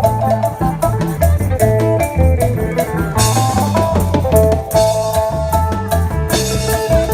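Isan phin band music: a plucked phin picks a fast, repeating melody over bass and drum kit, with cymbals coming in about three seconds in.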